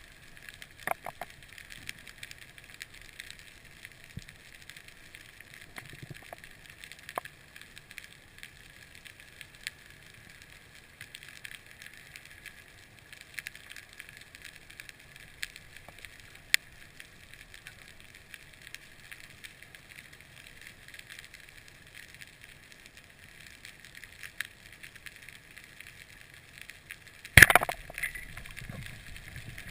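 Underwater crackle with scattered sharp clicks heard through a dive mask, then one loud sharp bang near the end, typical of a speargun being fired underwater.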